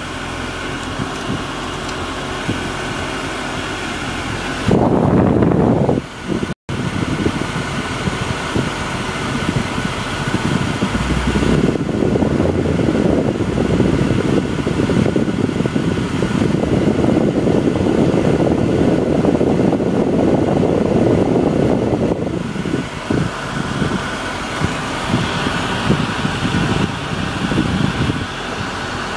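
BMW 2002's four-cylinder engine at fast idle while warming up after a cold start, heard from inside the cabin, with the air-conditioner blower fan running. A louder rushing noise swells for about ten seconds in the middle.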